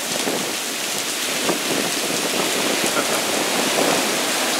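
Heavy rain falling steadily, mixed with the rush of surf washing in, with faint scattered drop ticks.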